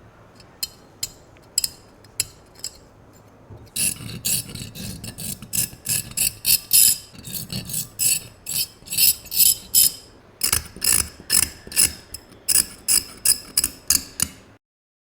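Hand-tool work on the metal of a rusty pistol: a few sharp clicks, then from about four seconds a steady run of scraping, rasping strokes at roughly two a second, cut off abruptly near the end.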